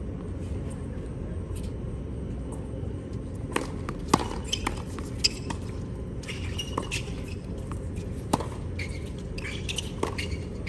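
Tennis rally on a hard court: rackets striking the ball and the ball bouncing, as sharp pops spaced about half a second to a second and a half apart that begin about three and a half seconds in. A steady low rumble runs underneath.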